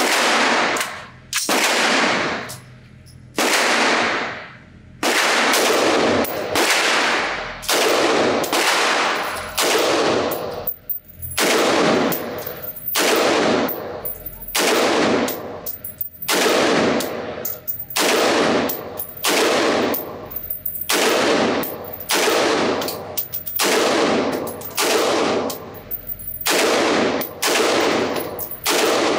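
Noveske Infidel Gen 4 AR-15 rifle firing single semi-automatic shots at a steady pace of about one a second. Each crack rings on in the long echo of an indoor shooting range.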